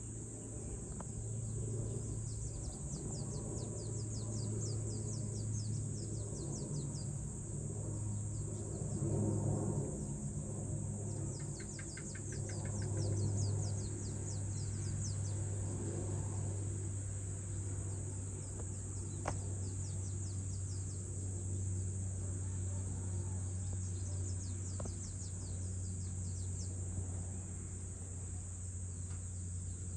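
Dusk insect chorus: a steady high-pitched drone of insects with runs of rapid chirps, and occasional bird calls, over a low steady hum.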